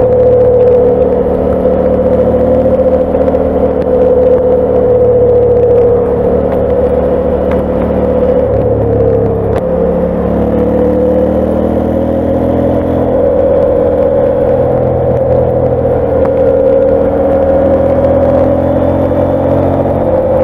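Onboard sound of a KTM 890 Adventure ridden at speed on tarmac: its parallel-twin engine running steadily under a constant hum, the pitch dipping a little about halfway through and rising again.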